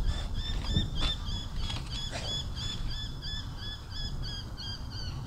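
A bird calling a long, even run of short chirps, about three a second, over a low rumble of wind on the microphone.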